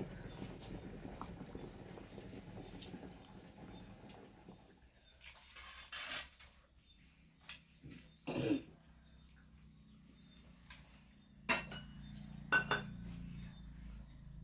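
Crab curry boiling in an aluminium pot, a steady low rumble, then from about five seconds in a few scattered clinks and knocks of steel plates and bowls, the loudest a little past halfway and near the end.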